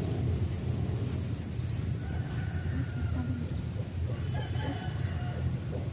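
Wind rumbling on the microphone, with a rooster crowing faintly in the background.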